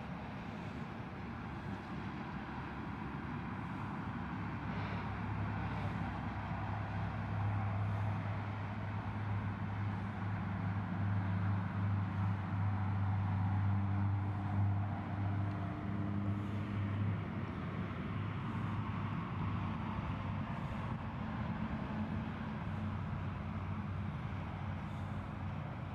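Motor vehicle engine and road noise: a steady low hum that grows louder for several seconds in the middle, then eases off.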